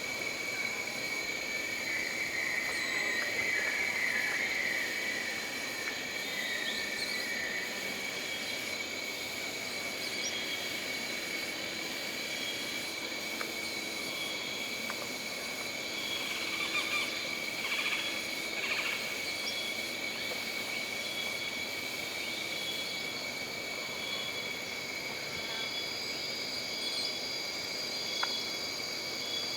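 Jungle ambience: insects shrilling steadily on several high pitches, one of them pulsing, over a soft background hiss, with a few brief chirping calls a few seconds in and again past the middle.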